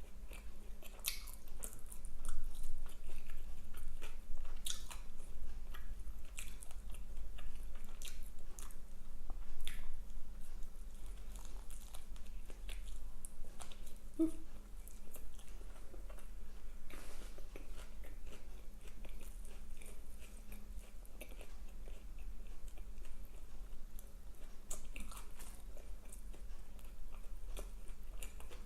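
Close-miked chewing and biting of Burger King fast food, with scattered short clicks of mouth and food noises.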